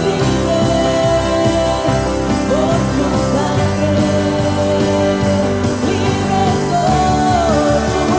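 Live worship band playing a Spanish-language worship song: voices singing the lines 'Por tu sangre' and 'Libre soy' over acoustic and electric guitars and drums, with a steady beat.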